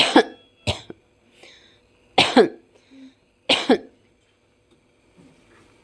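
A woman coughing four short times over several seconds, the last two each a quick double cough. This is deliberate post-operative coughing on instruction, to clear the chest a day after breast surgery.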